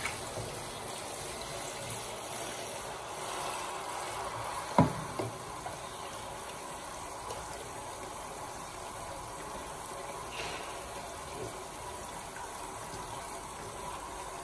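Water running steadily into a plastic tub and splashing around, with a single sharp knock about five seconds in.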